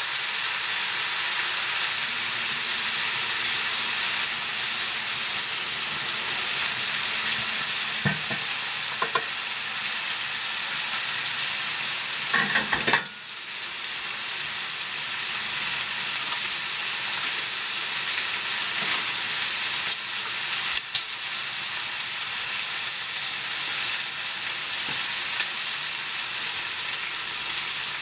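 Diced bacon frying in a pan, a steady sizzling hiss of hot fat. A few brief knocks around the middle.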